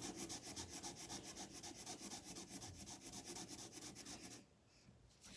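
Felt-tip marker scribbling on paper in rapid back-and-forth strokes as a picture is colored in, stopping near the end.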